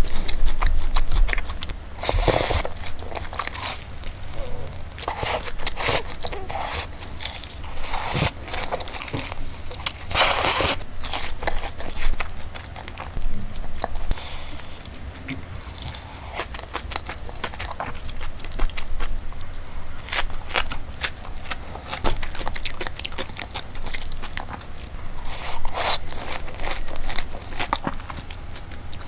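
A person biting into and chewing crunchy fried food close to the microphone: many sharp crackling crunches, with a few louder bites.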